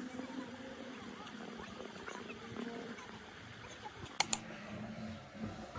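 Faint rural evening ambience of small wild-animal calls, many short calls overlapping steadily. Two sharp clicks come close together about four seconds in.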